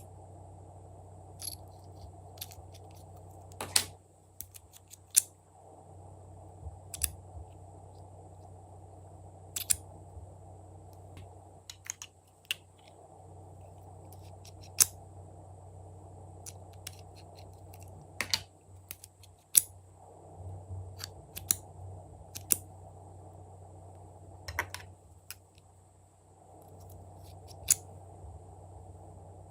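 Glossy slime being poked and squeezed by hand, giving irregular sharp clicks and pops, a few much louder than the rest, over a faint steady hum.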